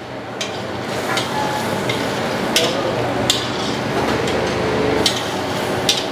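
Metal ladle stirring chicken gravy in a steel kadai, clinking sharply against the pan about six times over a steady sizzling hiss as the gravy simmers.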